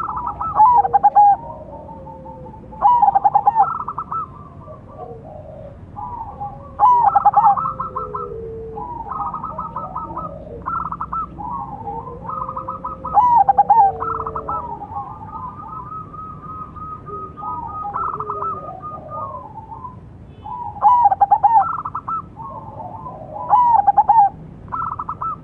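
Silver zebra dove (perkutut) cooing: repeated phrases of quick rolling coo notes, loud ones every few seconds with softer phrases and lower notes in between.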